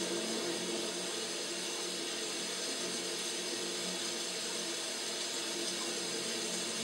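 Steady running water from a paludarium's water system, with a low, even hum underneath.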